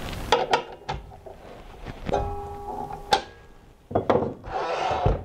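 Metal clinks and knocks of the outer washer and arbor bolt being fitted onto a miter saw's blade arbor, one knock leaving a short metallic ring about two seconds in. A longer scraping rub follows near the end.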